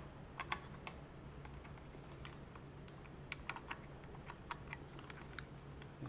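Irregular light clicks and ticks as a bare copper ground wire is bent and hooked around the green grounding screw of a three-way switch, over a steady low hum.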